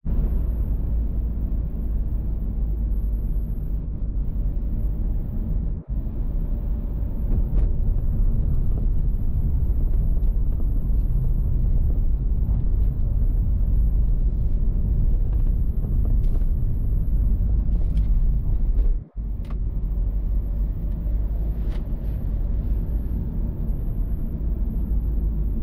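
2017 Renault Captur with the 1.2-litre TCe turbo petrol engine being driven: a steady low rumble of engine and road noise. It drops out briefly twice.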